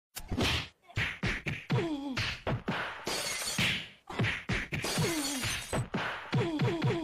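An off-screen fight of sound effects: a rapid, chaotic run of hits, crashes and shattering, with many short cries falling in pitch between the blows.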